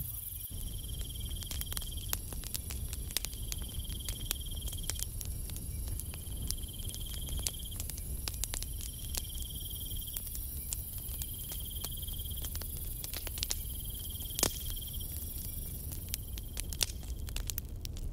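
Driftwood campfire crackling and popping, with a sharp crack about 14 seconds in. Over it, an insect's trill repeats every few seconds above a steady high-pitched insect drone.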